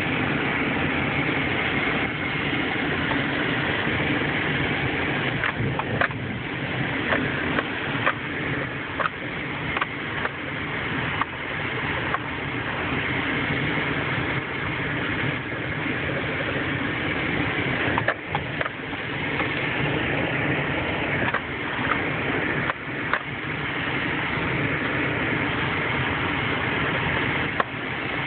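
Inside the cab of a 2003 Nissan Pathfinder driving over a bumpy dirt trail: the V6 engine runs steadily under tyre and road noise. Scattered knocks and rattles come as the truck jolts over the ruts.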